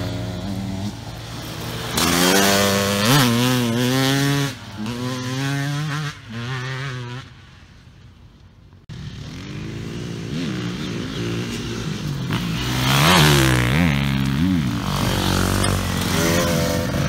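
Enduro dirt bikes revving as they ride past on a gravel track, the engine pitch rising and falling with each throttle blip and gear change. The sound drops to a faint distant engine for a couple of seconds in the middle, then another bike comes close and revs hard.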